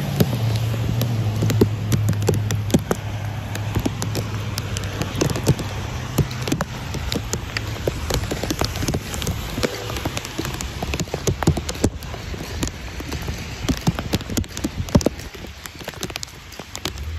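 Raindrops ticking irregularly and rapidly on the plastic bag wrapped around the phone, over a steady hiss of rain and wet traffic. A low vehicle engine hum fades out about halfway through.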